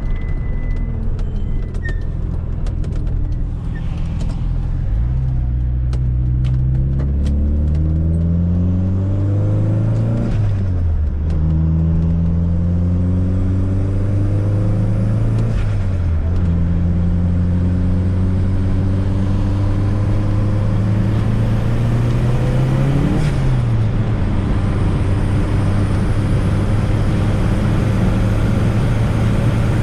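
Fiat Coupe 16V Turbo's turbocharged four-cylinder engine pulling the car along. Its pitch climbs and then dips sharply several times as it is accelerated and shifted through the gears, settling to a steady drone near the end.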